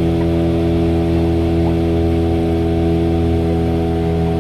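Boat engine running at a steady speed, an even drone that does not change.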